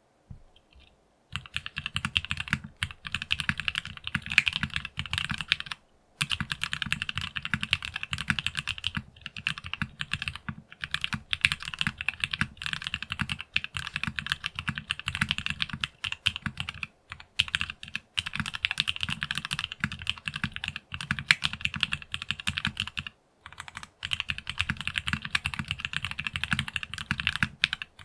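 Fast, continuous typing on a Geonworks Frog Mini mechanical keyboard with factory-lubed Gateron North Pole linear switches, an FR4 half plate and PBT keycaps: a dense run of keystroke clacks with a deep bottom-out, starting about a second in and broken by a few brief pauses.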